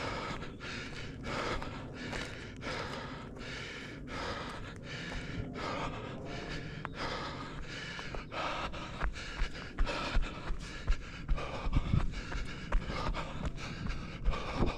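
A runner panting hard, with quick, even breaths. From about nine seconds in, low thuds of footfalls join in.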